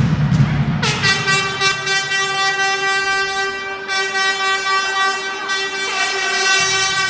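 Handheld air horn sounding one long, steady note, starting about a second in and held on without a break.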